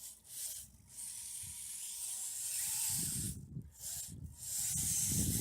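Steady hiss of rushing snowmelt water in a small runoff stream, cutting out briefly a few times, with wind buffeting the microphone from about three seconds in.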